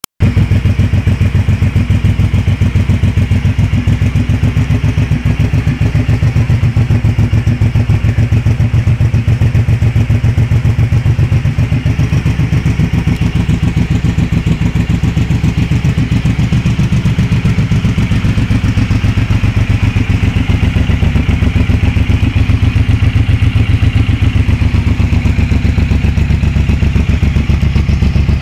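Suzuki M109R's 1783 cc V-twin idling steadily through a de-baffled exhaust, a loud, even stream of exhaust pulses, recorded close on a mobile phone.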